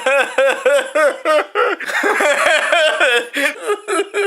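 Laughter: a rapid string of pitched 'ha' pulses, about four a second, running together past the middle.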